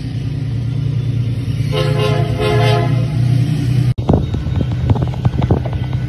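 Diesel freight locomotive's engine rumbling as it approaches, with a short blast of its multi-tone air horn about two seconds in that lasts about a second. After an abrupt cut near four seconds, irregular sharp knocks and clicks sit over the rumble.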